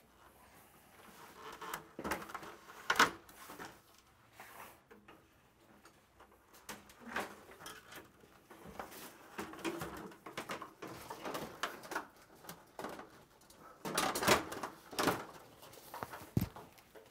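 A stepladder being moved and set in place: scattered knocks and clatters, loudest near the end, with a low thud just before it ends.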